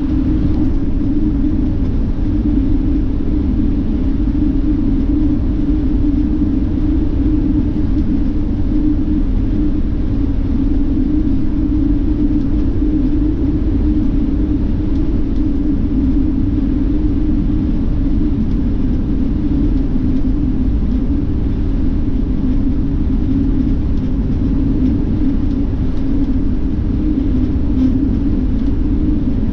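Steady low rumble of a moving bus heard from inside the cabin: engine and road noise with a constant hum.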